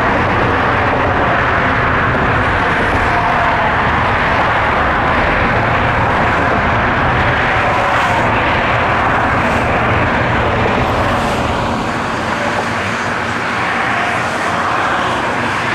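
Steady loud rushing noise with an engine rumble underneath; the low rumble eases about twelve seconds in.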